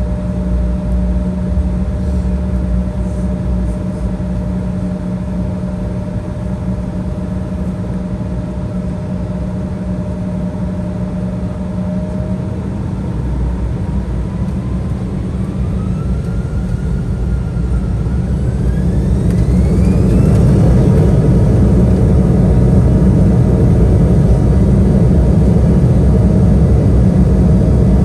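Embraer E175's GE CF34-8E turbofan engines heard from inside the cabin, humming steadily at low power, then spooling up to takeoff thrust: about halfway through a whine rises sharply in pitch and the sound swells into a louder, steady roar as the takeoff roll begins.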